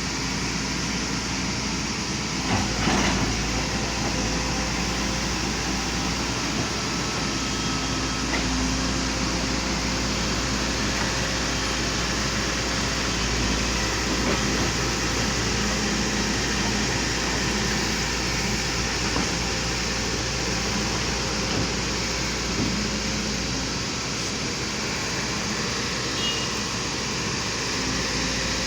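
Volvo excavator's diesel engine running steadily, with a brief knock about three seconds in.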